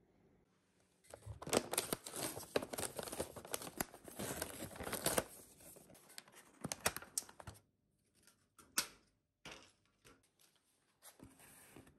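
A paper sleeve rustling as it is slid off a plastic bento box, with thin plastic crackling. Then a clear plastic lid crinkles and clicks as it is pried off the tray.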